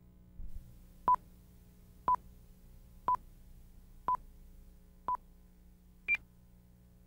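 Broadcast tape countdown leader beeps: five short identical beeps a second apart, then a sixth, higher-pitched beep, over a faint steady hum.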